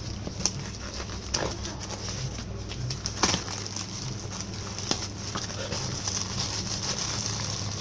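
Cardboard shipping box handled and pulled open by hand: a handful of sharp knocks and rustles of cardboard over a steady background hum.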